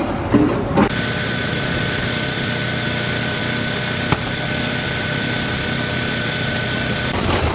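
An engine or motor running steadily with a thin, high steady whine, after a few knocks in the first second; one sharp click about four seconds in.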